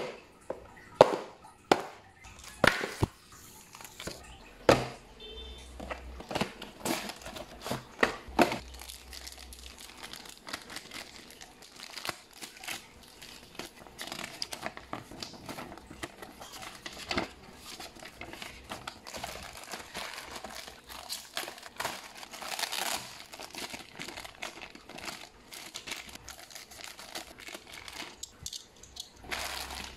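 Clear plastic parts bags and a paper instruction leaflet from a Beyblade box crinkling and rustling as they are handled. There are sharp clicks and knocks in the first nine seconds or so.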